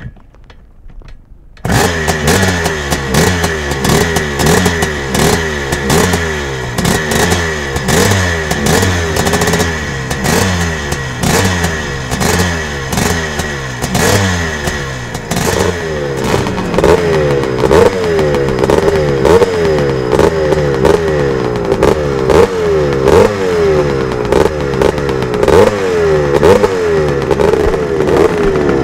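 Husqvarna 430 CR single-cylinder two-stroke dirt bike engine starting about two seconds in, then running and revved over and over in short throttle blips, the blips growing stronger in the second half.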